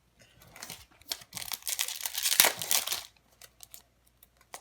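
Crinkly foil wrapper of a Magic: The Gathering booster pack being torn open and crumpled, a dense rustling that runs for about two seconds in the middle. A few small clicks and rustles follow as it is handled.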